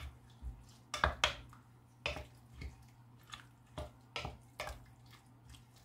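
Wooden spoon stirring a wet chopped-vegetable and tomato-juice mixture in a glass bowl: a dozen or so irregular light knocks and scrapes of the spoon against the glass.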